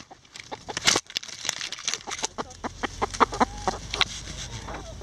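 Backyard hens clucking in a quick run of short clucks while foraging, with a sharp knock about a second in.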